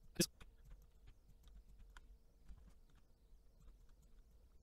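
Computer mouse and keyboard clicks: one sharp click just after the start, then scattered faint clicks.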